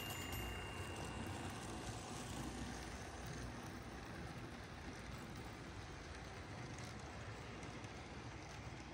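Mantua/Tyco HO-scale Union Pacific GP-20 model locomotive running past, its eight-wheel-drive motor whirring and wheels rolling on the track, followed by freight cars rolling by. A thin high whine fades out about a second in, and the sound gets a little quieter as the cars pass.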